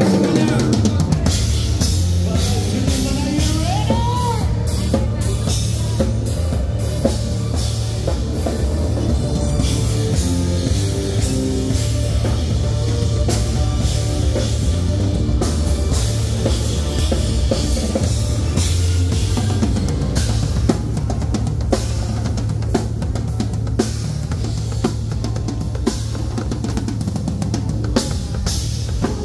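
Live rock band playing, with the drum kit's kick drum and cymbals driving a steady beat under electric bass and guitar.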